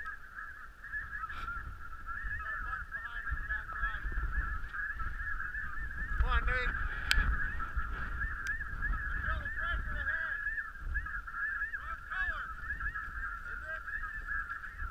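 A large flock of snow geese calling: a dense, continuous chorus of high yelping calls, with single louder calls standing out now and then as birds come closer. Wind rumbles on the microphone underneath.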